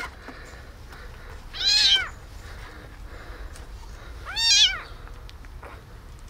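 Tiny tabby kitten meowing twice, high-pitched calls about half a second long each, a couple of seconds apart. Its rescuer takes the crying for hunger.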